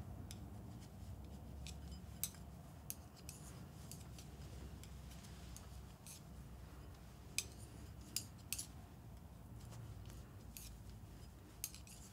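Metal-tipped knitting needles clicking together now and then as stitches are worked and cast off, sharp single clicks at irregular gaps of a second or more, over a faint low hum.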